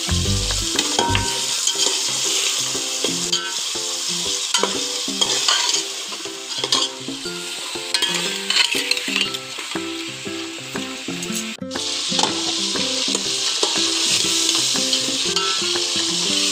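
Vegetables (peas, potato, carrot, tomato, green chilli) sizzling in hot oil in an aluminium pot while a steel ladle stirs and scrapes against the pot, at the sauté stage before water is added. The sound cuts out for an instant about two-thirds through.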